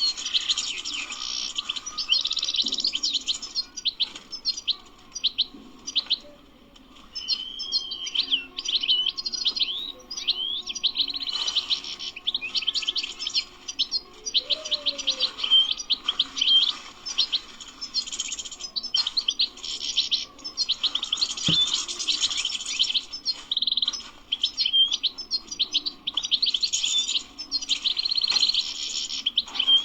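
European goldfinch singing a long, fast twittering song of rapid chirps and trills, with a short pause about six seconds in.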